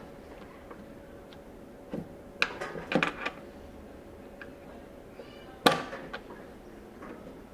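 Sharp clicks and knocks of a cast-aluminium vacuum vise being handled and worked onto a table top to make its suction base grip: one about two seconds in, a quick cluster a second later, and the loudest knock near the end.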